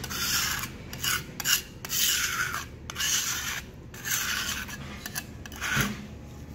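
Metal putty knife scraping across a concrete floor in repeated short, rasping strokes, working crack filler back into a floor crack.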